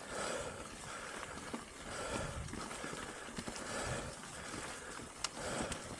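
A mountain biker's heavy breathing while pedalling, one breath about every two seconds, over the rumble and rattle of the bike's tyres on a dirt forest trail, with a sharp click about five seconds in.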